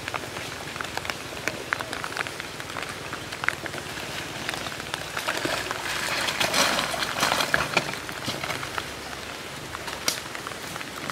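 Rain pattering on forest leaves: a steady hiss scattered with many small drip clicks. About six seconds in, a louder rush of noise swells for a couple of seconds as an enduro motorcycle comes down the muddy slope close by.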